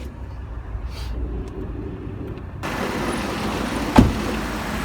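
Low, steady car rumble. About two and a half seconds in, the sound suddenly opens up into louder, hissy outdoor vehicle noise, and a sharp knock follows about a second and a half later.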